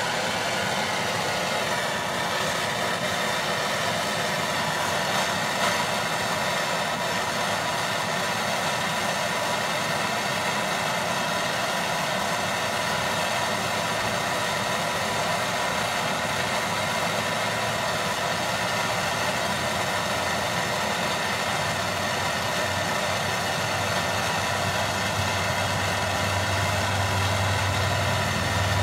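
Handheld propane blow torch burning with a steady hiss as its flame melts hardened PLA off a 3D printer's hot end. A low hum comes in near the end.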